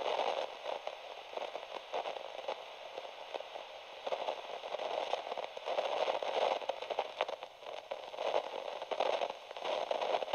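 Crackling, radio-like static, swelling and fading irregularly.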